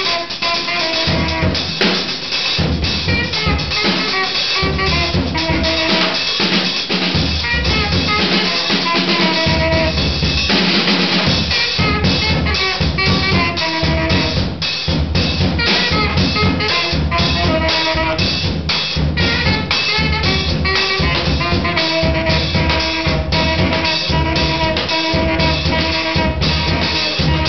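Free-jazz duo playing live: a drum kit played busily, with dense snare, rim and bass drum strokes, under a reed horn playing a string of held and short notes.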